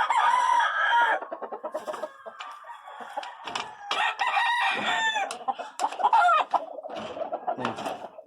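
Gamefowl roosters crowing, one long crow at the start and another about four seconds in, with chickens clucking in between.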